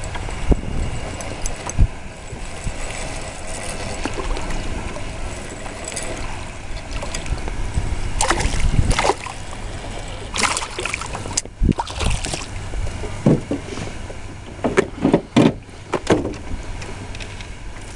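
Wind on the microphone and water lapping against a small boat's hull. From about eight seconds in come a run of splashes and knocks as a small rock bass is reeled to the surface and lifted from the water.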